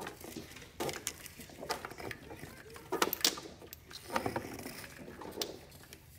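Horizontal window blind slats rattling and clacking against each other as a toddler grabs and pulls on them, in irregular clicks and rattles.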